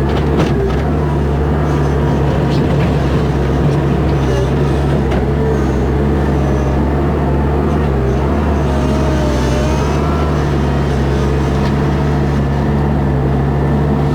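Toyota diesel skid steer engine running steadily at working speed. A faint wavering whine rises over it about halfway through.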